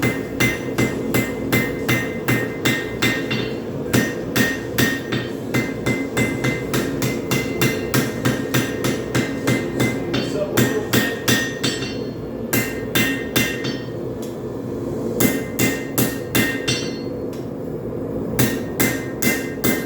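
Hand hammer striking a hot railroad spike on an anvil in a steady rhythm, about two to three blows a second, each with a short metallic ring, forging out the knife blade. The hammering pauses briefly a couple of times in the second half, over a steady low rumble.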